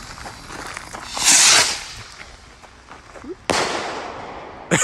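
Consumer aerial fireworks: a loud hissing rush as a shot lifts off about a second in, then a sudden loud bang at about three and a half seconds with a trailing rush as the shell bursts, and another sharp bang near the end.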